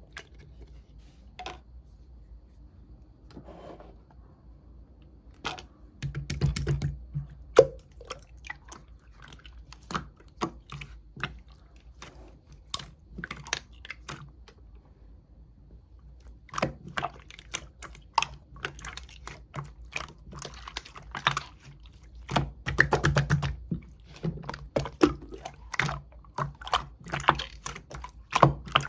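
Clear slime being squeezed and pressed by hand, making sharp clicks and pops. The clicks are sparse at first and turn into dense, irregular crackling about six seconds in, with heavier squishes near six and twenty-three seconds.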